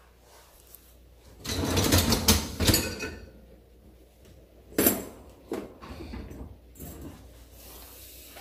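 Dishes clattering as they are handled: a rattling burst of about two seconds, then one sharp knock and a few lighter knocks.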